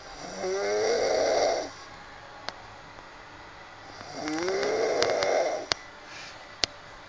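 A person snoring heavily: two long snores about four seconds apart, each opening with a rising tone before turning noisy. A few short sharp clicks fall between them.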